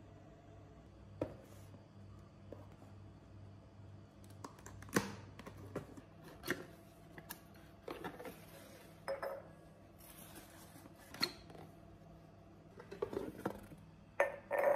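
Cardboard boxes being opened and handled, with scattered light knocks and clinks as glass fish bowls are lifted out and set down. Near the end a bowl clinks against glass and rings on briefly.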